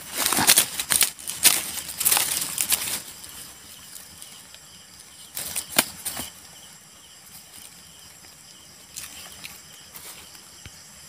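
Dry bamboo leaf litter crackling and rustling as a hand rummages through it and pulls out a shot bird. The rustling comes in dense bursts over the first few seconds, with a shorter burst about six seconds in and a faint one near the end.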